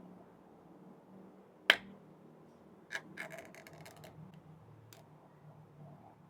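A sharp click about a second and a half in, then a single click, a quick run of lighter clicks and taps, and one more click near the end, over a faint steady low hum.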